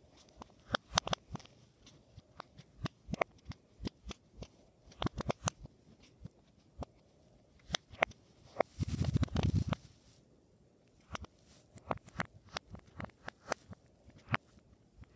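Silicone pop-it fidget toy having its bubbles pressed through one after another: a long run of soft, irregular pops. About nine seconds in, a louder second-long rustling rub, like the toy or a hand shifting on the cloth.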